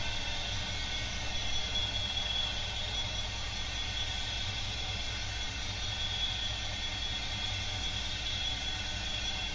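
Bosch Maxx 7 washing machine in its final spin, with a steady low rumble and a steady high-pitched whine that the owner puts down to a noisy motor bearing.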